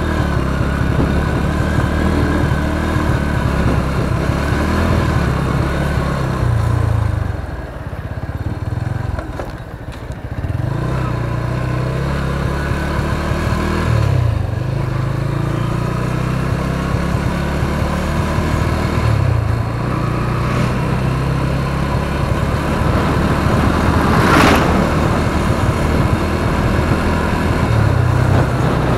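Motorcycle engine running while riding along a road, with road and wind noise. The engine note eases off about a quarter of the way in and picks up again, rising and falling a few times with the throttle. There is one brief sharp sound about five-sixths of the way through.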